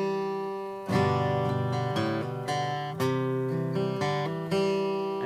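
Acoustic guitar strummed on a C chord with hammer-on filler notes worked in between strums, the chords ringing out; the strongest strums come about a second in and about three seconds in.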